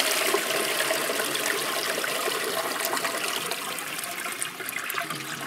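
Toilet flushing: water rushing and swirling in the bowl, easing off toward the end.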